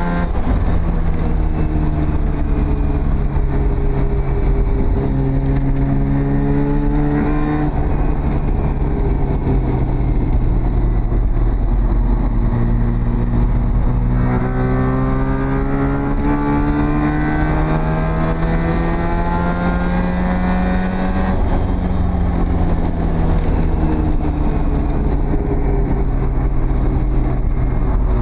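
Mazda RX-7's bridge-ported 12A two-rotor rotary engine under way, heard from inside the cabin. It climbs in pitch twice as the car accelerates, with a sudden drop at a gear change about 8 and again about 21 seconds in.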